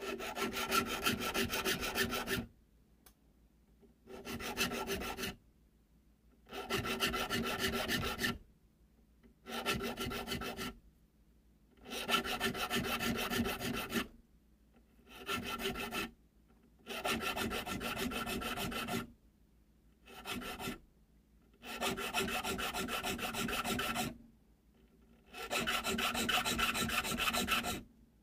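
Nicholson triangle file, five or six inch, cutting notches into the spine of slip joint knife liners clamped in a vise. It comes in about ten runs of rasping strokes, each a second or two long, with short pauses between, and a steady ringing pitch runs under the rasp.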